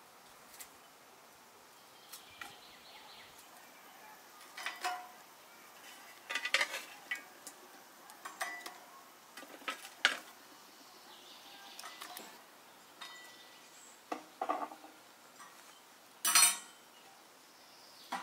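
Dishes and cutlery clinking and knocking as they are handled in cooking, in scattered irregular strikes, some ringing briefly; the loudest clatter comes near the end.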